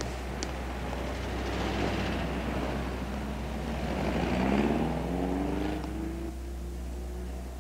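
Street traffic: cars pass with engine and tyre noise swelling twice, then one car's engine accelerates away, its pitch rising steadily. A steady low hum runs underneath.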